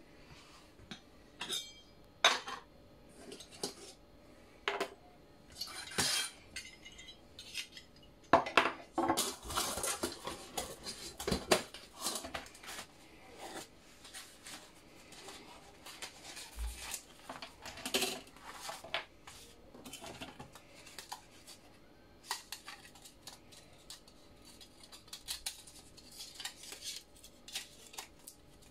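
Stainless steel camping kettle being unpacked by hand: its lid, a gas burner and the thin metal plates of a folding pot stand are lifted out, with irregular metal clinks and clatters and the handling of a cloth bag, busiest in the middle.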